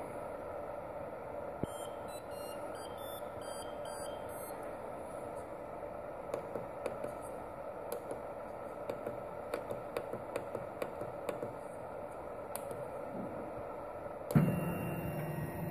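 3D printer's controller panel piezo buzzer plays a short tune of quick high beeps about two seconds in, over the steady hum of the printer's fans. Soft clicks follow as the menu buttons are pressed, and near the end the stepper motors start up with a low steady whine as the axes begin homing.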